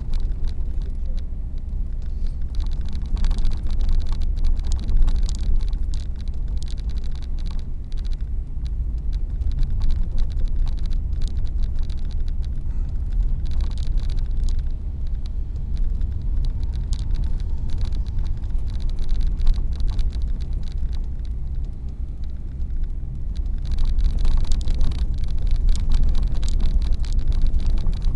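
Car driving, heard from inside the cabin: a steady low rumble of engine and tyres with scattered faint ticks, and a hiss that grows louder near the end.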